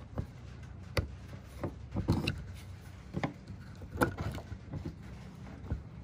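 Sharp plastic clicks and knocks as a screwdriver works loose a compact plastic RV duplex outlet receptacle and it is pulled out of its opening in the van's exterior wall. The clicks are scattered, about one a second, the loudest about a second in and about four seconds in, over a low steady hum.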